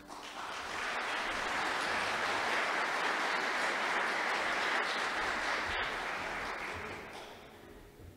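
Audience applauding, swelling within the first second, holding steady, then dying away near the end. One sharp click sounds about six seconds in.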